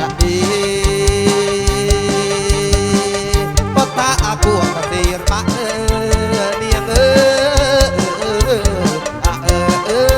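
Kantrum band playing live through a PA: a steady drum beat under a melody that holds one long note for about three seconds, then breaks into wavering, ornamented phrases.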